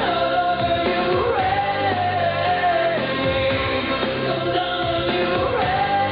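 1980s pop song: a singer holding long, sliding notes over the band's steady backing.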